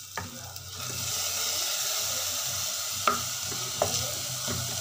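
Washed masoor and moong dal sizzling as it lands in hot onion-tomato masala in a pressure cooker, the hiss swelling about a second in. A few sharp knocks are heard as it is stirred.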